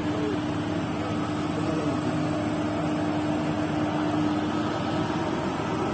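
Excavator's diesel engine running steadily, an even mechanical hum with a steady low drone.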